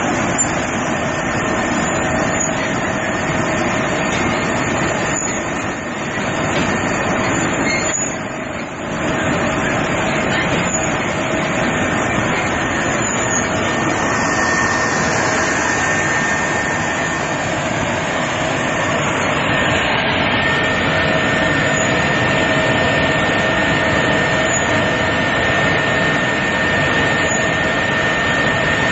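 Stainless-steel industrial date dicing machine running: a steady mechanical noise of motor, conveyor and cutters, with a steady whine in two pitches on top.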